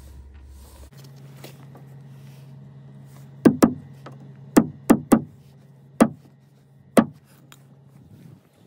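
Hammer tapping a small nail into a wooden cleat across a wooden hot tub's boards: seven sharp strikes, some in quick pairs, from about three and a half seconds in to about seven seconds in.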